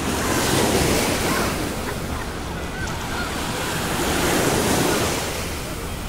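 Small sea waves breaking and washing up the beach, a steady rush of surf that swells twice, about half a second in and again about four seconds in.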